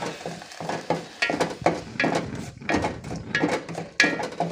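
A utensil stirring ginger juice and palm sugar in a metal pot, knocking and scraping against the pot about twice a second with short metallic clinks, as the mixture cooks down to a thick syrup.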